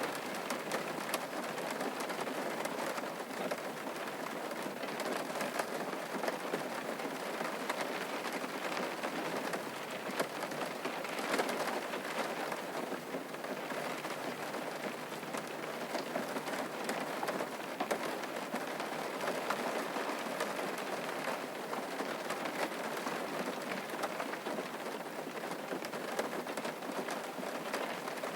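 Steady rain falling and pattering on a surface, a dense even hiss of many drops with individual drip ticks.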